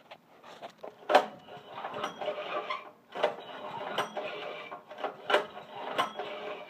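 Recoil pull-starter of a Champion 6.5 HP generator engine yanked several times, the cord rasping out and the engine turning over without firing: the carburetor is empty, and the pulls draw fuel into it.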